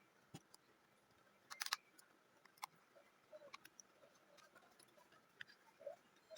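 Faint, scattered small clicks and ticks of small-parts handling, with a brief cluster of clicks about a second and a half in.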